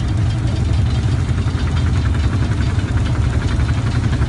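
An engine idling steadily: a low, even rumble with a faint regular ticking above it.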